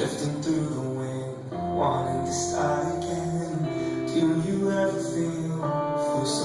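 Recorded music playing: sustained notes that change every second or so, with a few light high hits.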